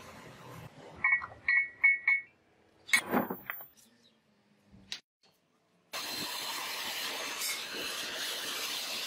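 A felt-tip marker squeaks four times as it is drawn across a rusty steel drill bit, followed by a short scrape as the bit is handled against wood. About six seconds in, the steady rushing of an air-blown coal forge fire starts and keeps going.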